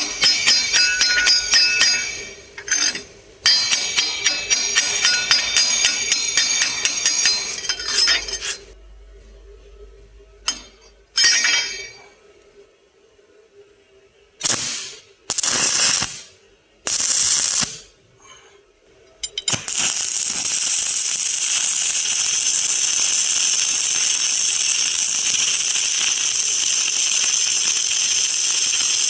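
Welding arc crackling and spitting, in a long run with a brief break, then several short bursts like tack welds, then settling into an unbroken steady hiss for a long bead.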